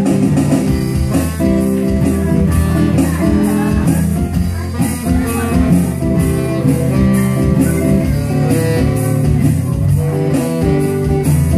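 Live band music led by a strummed acoustic guitar, played to a steady beat.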